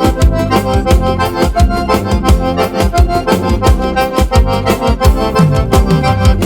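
Instrumental vaneira music led by the accordion (gaita), with bass and a steady drum beat.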